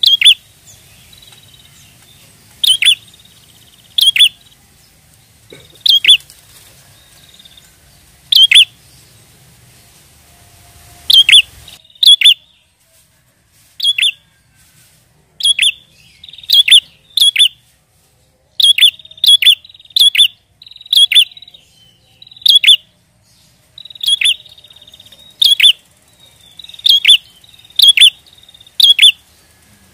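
A prinia (prenjak) giving loud, sharp chirping calls, one every second or so and sometimes in quick pairs.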